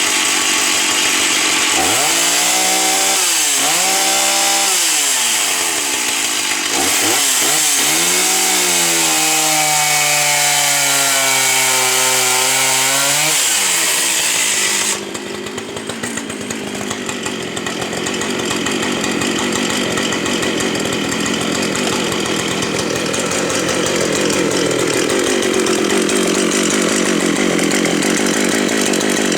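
Stihl 042 chainsaw at full throttle cutting a log, its engine note sagging and recovering as the chain bites into the wood. About halfway it drops suddenly to a lower, quieter running sound, which picks up a little near the end.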